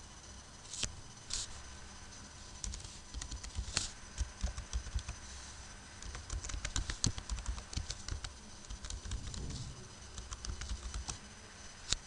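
Computer keyboard typing in quick, irregular keystrokes, with a couple of sharper clicks about a second in.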